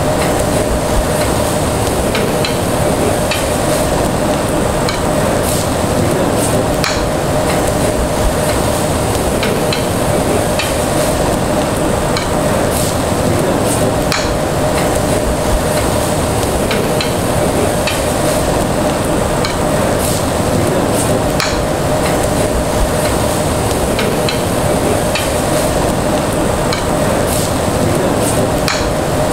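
Meat sizzling on a tabletop Korean barbecue grill, with stainless tongs clicking against the metal grill plate now and then as the pieces are turned. A steady hum runs underneath.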